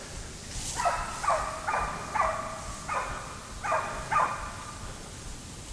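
Hunting hounds baying on a deer chase: about seven drawn-out bays in quick succession, each sliding down in pitch.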